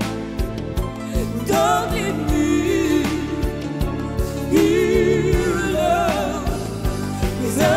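A woman singing a pop song into a handheld microphone, her held notes wavering with vibrato in several phrases, over backing music with a steady beat.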